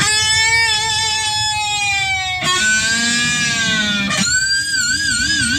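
Electric guitar playing long sustained lead notes: three held notes of a second and a half to two and a half seconds each, the last one shaken with a wide vibrato.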